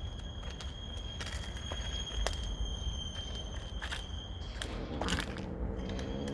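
Cats chewing and crunching food: scattered sharp clicks over a steady high thin tone and a low rumble, with a low droning tone coming in a little past halfway.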